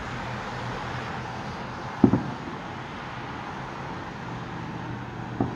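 Distant fireworks going off as short, low booms: a loud one about two seconds in, followed closely by a smaller one, and another near the end. Under them is a steady hum of city traffic.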